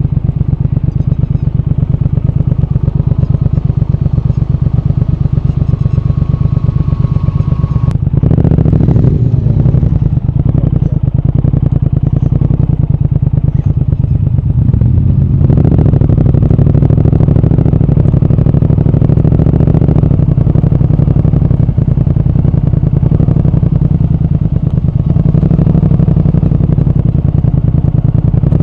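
Triumph Speed Twin 1200's parallel-twin engine and exhaust running under way, a steady, fast low pulsing. The note grows fuller about eight seconds in and again about fifteen seconds in, as the throttle opens.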